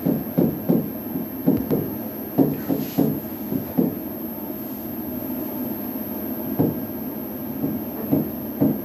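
Stylus knocking against an interactive smart-board screen during handwriting: a series of irregular dull taps over a steady low hum.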